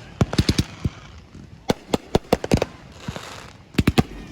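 Fireworks going off: rapid strings of sharp bangs and crackles, in three quick bursts.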